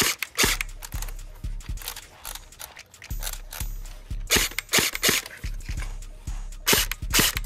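Low-power airsoft electric gun (Umarex HK416 LPAEG) firing on semi-auto, a string of sharp single shots at irregular intervals, with music underneath.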